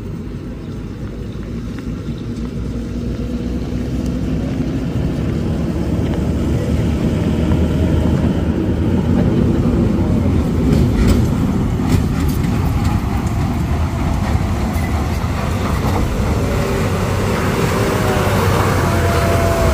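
Mitsubishi Fuso truck's diesel engine working hard on a steep uphill climb, growing steadily louder as the truck approaches and passes close by, with a rising whine near the end.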